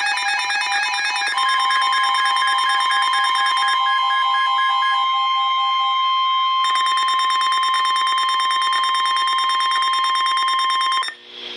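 NOAA Weather Radio warning alarm: the steady 1050 Hz alert tone comes in about a second and a half in and cuts off suddenly near the end. Throughout, it is layered with fast-pulsing electronic alarm beeps at several pitches. The tone is the signal that a warning message is about to be read.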